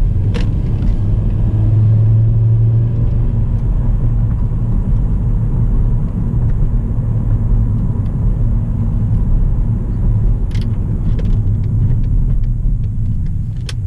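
2009 Volkswagen Jetta with the 2.5 L five-cylinder engine driving on a test drive after a front axle replacement. The engine and road noise make a steady low rumble, with a few faint clicks.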